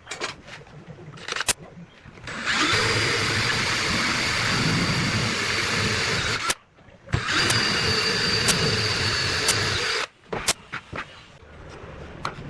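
A handheld power tool runs for about four seconds with a steady whine, stops briefly, then runs again for about three seconds. A few sharp clicks and knocks come before and after.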